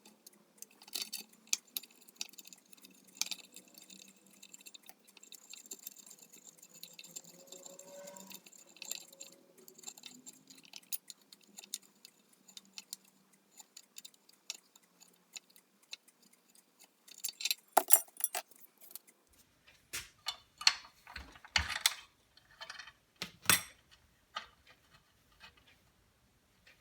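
Light metallic clinks and taps of tools and hardware being handled, scattered at first, with a run of louder knocks and clinks in the second half.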